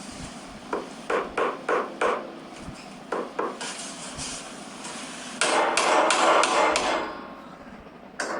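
Hammer blows crushing waste pencils: a quick run of about five strikes about a second in, two more a little after three seconds, then a loud dense flurry of blows and crunching wood for about a second and a half.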